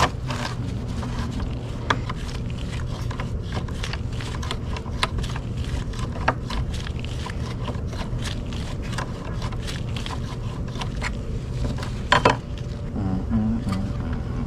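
Time-Sert thread tap cutting threads into a drilled bolt hole: irregular scraping clicks and ticks, one louder cluster near the end, over a steady low hum.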